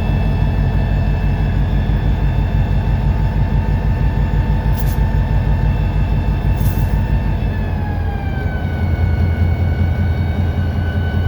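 EMD SD40-2 locomotive's 16-cylinder two-stroke diesel running under load, heard from inside the cab. About eight seconds in, its pitch drops as the engine winds down. Two short hisses come near the middle.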